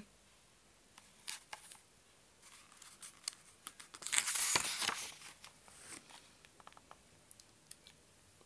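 Picture-book page being turned by hand: a few light taps and paper rustles, then a paper swish about halfway through, followed by faint ticks.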